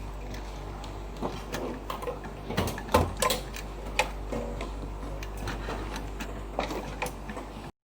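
Scattered sharp clicks and knocks of hands working on machine parts, over a steady low electrical hum. The loudest knocks come about three and four seconds in, and the sound cuts off abruptly near the end.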